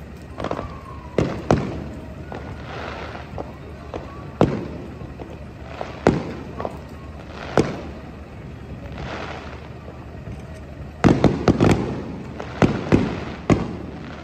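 Fireworks shells bursting in the sky: a series of booms a second or two apart, each trailing off, with a quick run of bangs close together about eleven seconds in.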